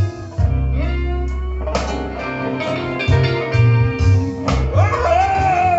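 Blues recording playing back on an Akai GXC-570D cassette deck: guitar and bass in an instrumental passage, with a bending slide-like note near the end.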